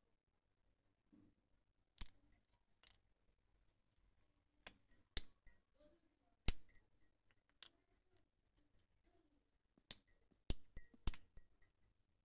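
Broken terracotta clay pot shards clinking as they are set down and dropped onto a concrete floor and against each other. Sharp, ringing clicks come in small clusters with silent gaps between, the loudest about two seconds in, six and a half seconds in, and around ten to eleven seconds.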